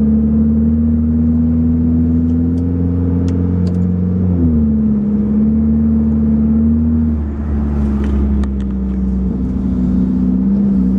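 Car engine and exhaust heard from inside the cabin while driving, on a car whose exhaust is leaking where it broke at the down-pipe flange. The engine note is steady, drops in pitch about four seconds in, then holds steady again, with a few light rattles.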